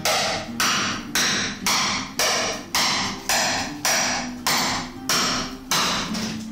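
Hammer blows on a metal bar wedged between the planks of an old wooden boat to pry them apart. The blows land at a steady rhythm of just under two a second, each ringing briefly.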